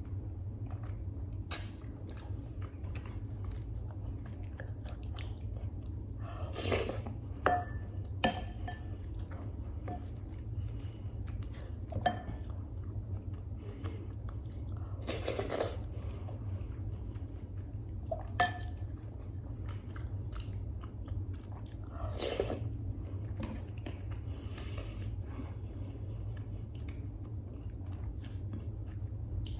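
Close-miked eating of freekeh with beef: wet chewing and mouth sounds with a few sharp clicks, over a steady low hum.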